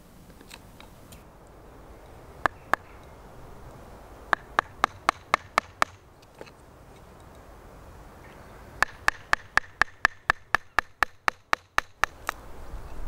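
Sharp taps of an in-cannel gouge chopping into green ash end grain, coming in runs at about four a second: two taps, then a run of about six, then a longer run of about thirteen.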